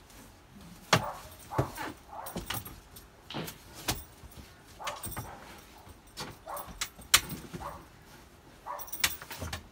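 A run of sharp knocks and clicks, roughly one every half second to a second, as a canvas safety wall and its fittings are handled and pushed into place against the bed end of a camper trailer.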